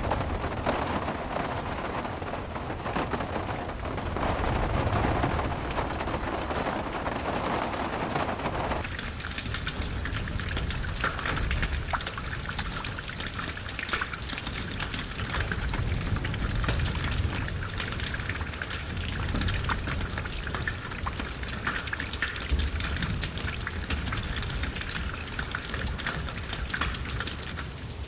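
Steady rain falling. About nine seconds in it changes abruptly to a brighter, crisper patter of many separate drops. A low rumble runs underneath throughout.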